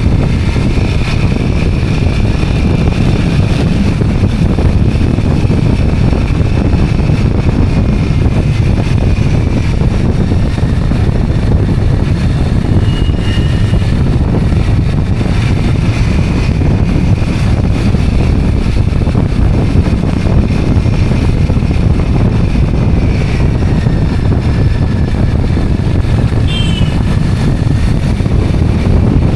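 Two-wheeler riding along: engine and road noise under heavy wind buffeting on the microphone, with a faint whine that drifts up and down with speed.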